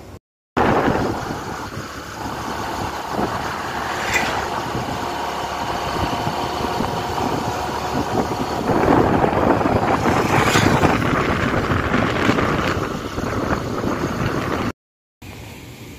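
Vehicle engine running while driving along a road, with heavy wind noise on the microphone; it grows louder about two-thirds of the way through.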